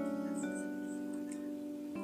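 Soft instrumental background music of held notes, with a change of notes about half a second in.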